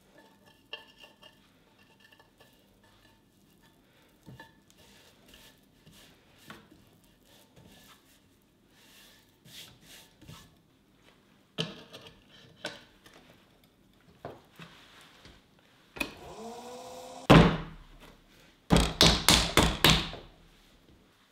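Hands setting up a pottery wheel: light handling taps and rustles as a foam grip mat and bat are laid on the wheel head. Late on comes one loud thunk as a lump of clay is slapped down onto the bat, then a fast run of about six slaps as it is patted into a mound.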